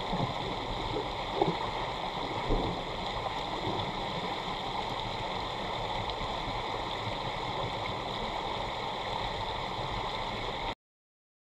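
Underwater sound recorded by a GoPro in its waterproof housing on the bottom: a steady muffled rushing hiss, with two dull knocks in the first few seconds. It cuts off abruptly near the end.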